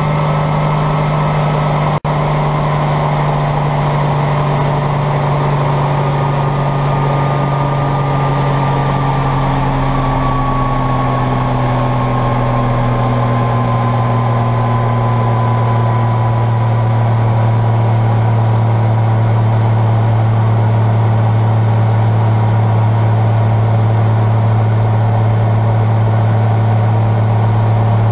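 Bell 47 helicopter running: a steady engine drone whose pitch drifts slowly down over the first half and then holds level, with a momentary drop-out about two seconds in.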